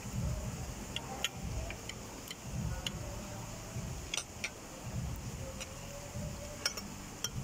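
Metal cutlery clinking against plates and bowls during a meal, about eight short scattered clinks, over a low steady background rumble.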